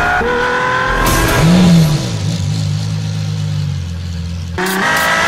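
LaFerrari's V12 engine accelerating hard: just after the start the pitch steps down at an upshift and then climbs again. It gives way to a low steady drone in the middle, and a fresh run of rising revs begins near the end.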